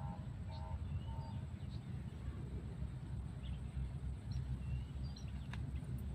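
Wind buffeting the microphone as a low, uneven rumble, with faint scattered bird chirps over it. A short run of clipped calls sounds in the first second, and a few light clicks come near the end.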